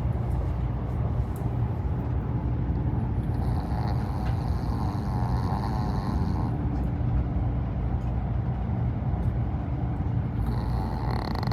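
A brachycephalic Shih Tzu snoring, one drawn-out stretch of snoring about three seconds in and another starting near the end, over the steady low rumble of a KTX high-speed train in motion.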